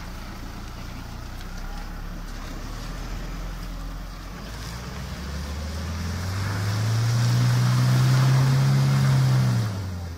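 Isuzu D-Max 3.0 Ddi four-cylinder turbo-diesel engine pulling the 4x4 pickup up a steep grassy slope. It runs low at first, revs up about halfway through and holds there hard under load, then eases off shortly before the end.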